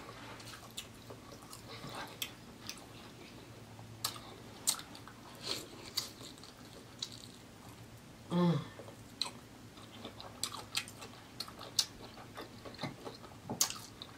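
Close-miked chewing of sauce-coated lobster meat, with many short wet smacks and mouth clicks. About eight seconds in, a brief hummed vocal sound falls in pitch.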